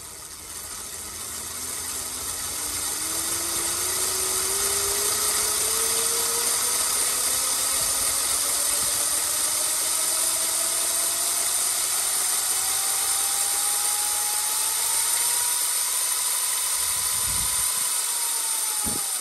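Electric pit bike's hub-free chain-drive motor, a 48-volt E&C upgrade kit on a Razor MX, winding up in a run-up: a whine that climbs steadily in pitch and loudness for about fifteen seconds, levels off near top speed, then begins to drop off right at the end.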